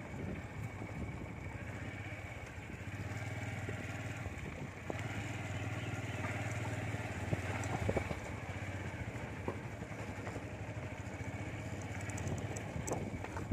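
Motorcycle engine running steadily at low speed, a low hum, with a few light clicks and rattles.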